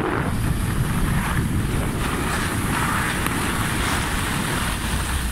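Wind buffeting a smartphone's microphone during a ski run downhill, a steady low rumble, with the hiss of skis sliding over snow rising through the middle.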